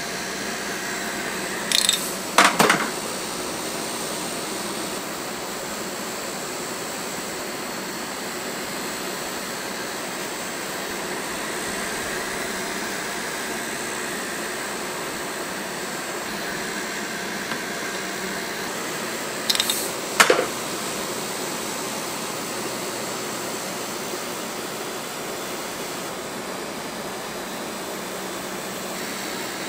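Cotton candy machine running with a steady whir as its heated spinning head throws out sugar floss. Twice, about two seconds in and again about twenty seconds in, there is a short clatter of sharp metal clicks from the sugar scoop.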